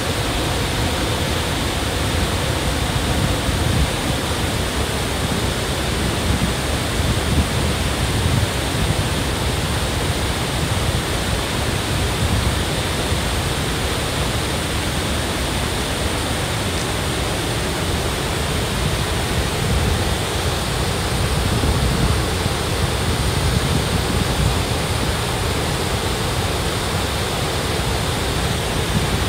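Cameron Falls pouring into its pool, with the shallow creek below running over stones: a steady, even rush of falling and flowing water.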